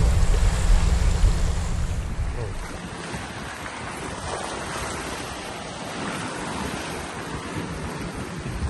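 Sea waves washing and breaking over rocks. For about the first two seconds heavy wind rumble buffets the microphone, then it drops away and only the even surf remains.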